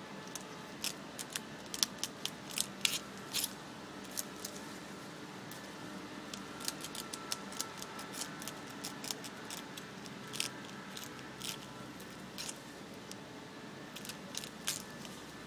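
A fox squirrel gnawing through a green branch: irregular crisp clicks and crunches of its teeth cutting the fibres, coming in quick clusters with short pauses between.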